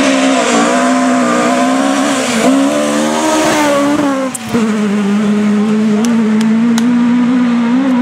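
A rally car's engine is held at high revs as it comes along a gravel forest road and passes close by. There is a brief lift off the throttle just after four seconds in, then a steady engine note as it pulls away. A few sharp ticks sound in the second half.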